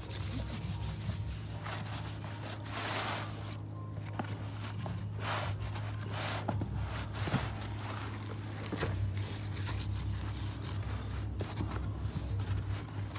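Scuffing and rubbing handling noise as a cardboard shipping box is touched and picked up, in several brief bursts over a steady low hum.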